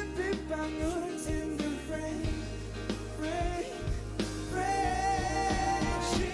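Live performance of a rock band's ballad with a male lead singer over a steady bass line; the voice holds one long note from about four and a half seconds in.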